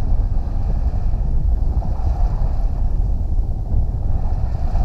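Wind buffeting the microphone aboard a sailboat under sail, a steady loud low rumble with no engine running.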